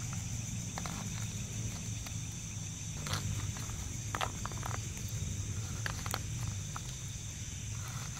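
Steady high-pitched insect chorus over a low hum, with scattered light clicks and taps, the clearest about three and four seconds in.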